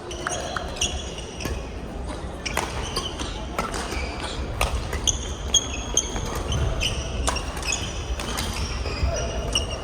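Doubles badminton rally: rackets hitting the shuttlecock in a run of sharp irregular strikes, shoes squeaking on the court floor, and players' footfalls.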